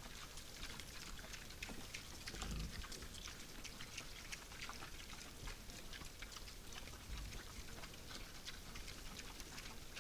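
Wild boars foraging at a feeder, recorded by a trail camera's microphone: an irregular scatter of small clicks and crackles, with a low thud a couple of seconds in and another about seven seconds in.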